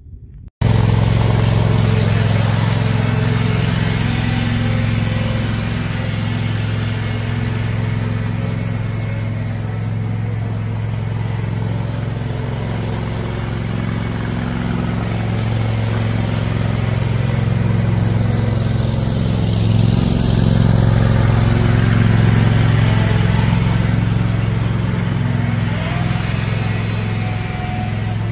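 A 25 hp Murray Performance GT garden tractor engine running steadily as the tractor is driven along. It cuts in suddenly about half a second in and grows louder about two-thirds of the way through as the tractor passes close by.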